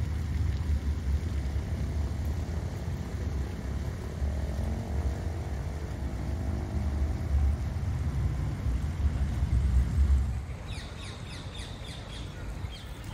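Low rumble of road traffic, with one vehicle's engine passing between about four and eight seconds in. About ten seconds in the rumble drops away and small birds chirp repeatedly.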